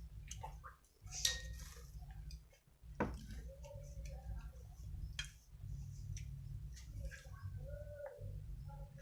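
Eating sounds at close range: scattered sharp clicks, like shells or utensils knocking on a plate, over chewing and short mouth noises.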